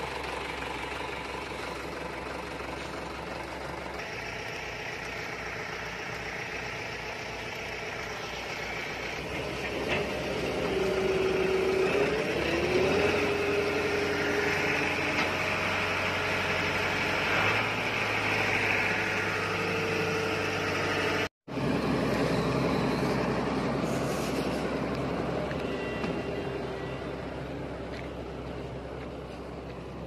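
Heavy diesel machinery running steadily, getting louder for about ten seconds in the middle with a wavering whine while the excavator's bucket digs soil. The sound cuts out for an instant about two-thirds of the way through.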